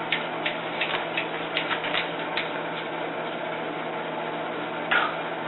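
Microwave oven running with a steady hum, with a scatter of light clicks and ticks over the first couple of seconds and a short rustle near the end.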